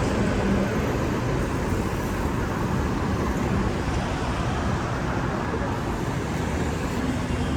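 Steady road traffic noise: motor vehicles running close by, a continuous even rumble with a faint low engine hum near the start and again near the end.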